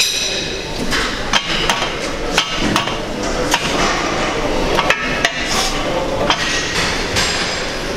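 Iron weight plates and gym bar clanking: a string of irregular sharp metallic knocks and clinks, some ringing briefly.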